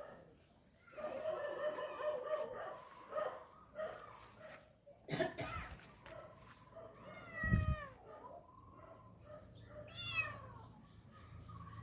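A kitten meowing: a long call in the first few seconds, then shorter cries, with two quick high-pitched chirps about seven and ten seconds in.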